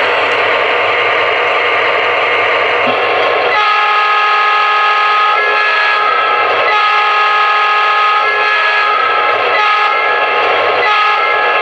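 Lionel RailSounds II diesel sound through a Williams E7 O-gauge locomotive's speaker: engine sound, then from about three and a half seconds in a multi-tone diesel air horn blowing a series of long blasts with short breaks between them.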